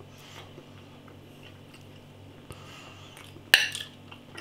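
Faint chewing of a mouthful of steak pudding, then metal cutlery clinking sharply against a plate about three and a half seconds in, with a short ringing.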